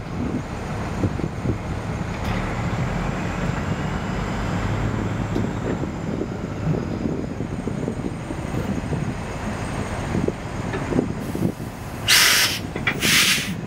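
Small diesel locomotive engine running with a steady low rumble, and two loud hisses of air from the air brakes near the end.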